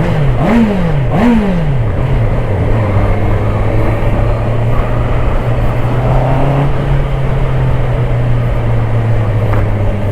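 Honda CBR650R inline-four engine revving up and down twice in quick succession, then holding a steady drone.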